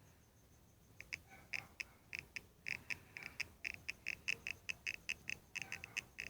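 Small, quick bubble-like pops from an eye as the eyelid is pressed lightly. The pops start about a second in and come several a second in an irregular run.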